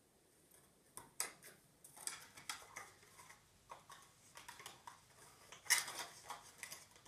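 A small plastic sharpener-eraser set and its cardboard box being handled: an irregular run of light clicks, taps and rustles, the sharpest about six seconds in.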